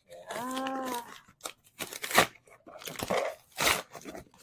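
Brown kraft-paper mailer bag being torn open and crinkled by hand, in a run of sharp rips and rustles. A short held voice-like sound comes just before the tearing starts.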